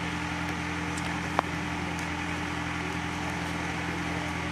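A steady low hum, even and unbroken, over a faint background of room noise, with one short sharp click about a second and a half in.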